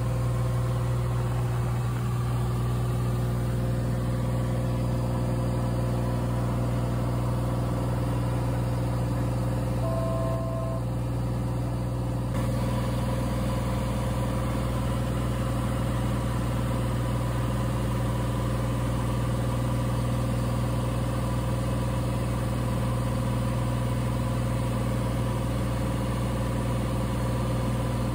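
Cessna 182's piston engine and propeller droning steadily in flight, heard from inside the cabin. A short beep sounds once about ten seconds in.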